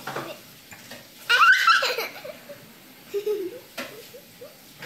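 A young child laughing in one short, high-pitched burst about a second and a half in, followed by a brief lower vocal sound.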